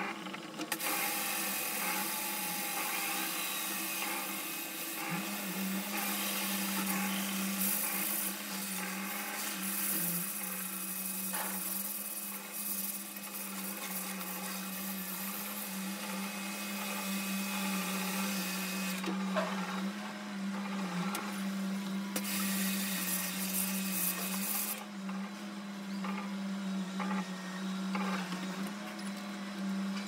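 Pressure washer running with a steady motor hum while its water jet hisses against the inside of a top-load washing machine's tub. The spray stops about two-thirds of the way in, comes back for a few seconds, then stops again while the motor keeps humming.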